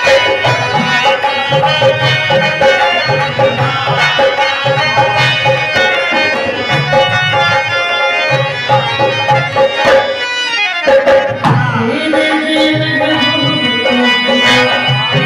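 Folk music played by a small ensemble: dholak and tabla hand drums keep a steady repeating rhythm under a harmonium's sustained reedy melody.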